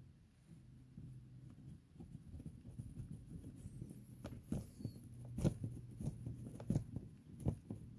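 Small screwdriver turning the tiny screw back into a plastic Honda key fob, with light scratchy clicks and taps. The clicks come more often and louder in the second half, over a faint steady hum.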